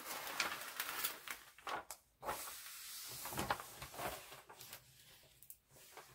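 Protective cover sheet of a diamond-painting canvas being peeled back, rustling and crackling. The canvas is then slid and smoothed flat by hand, and the noise tapers off near the end.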